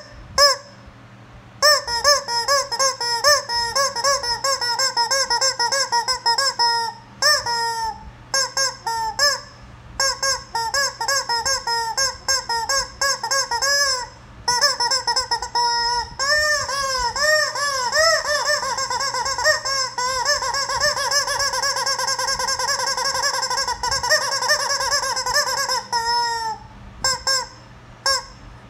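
Rubber chicken squeeze toy squawking over and over: runs of short, honking squeaks with brief pauses between them, then from about halfway a long unbroken stretch of rapid, wavering squeals.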